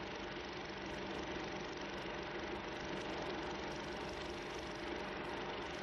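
Steady hiss with a faint low hum, even and unchanging, with no other sound.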